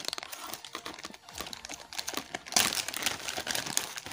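Clear plastic packaging bag crinkling as the bagged e-bike throttle is handled and lifted out of the box, with rapid irregular crackles that grow louder past the halfway point.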